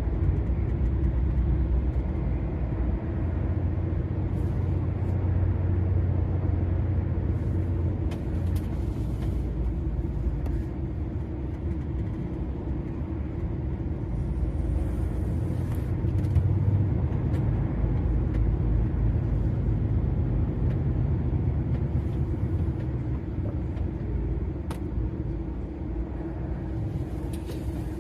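DAF XF 480 lorry's straight-six diesel running at cruising speed, with a steady low engine and road rumble.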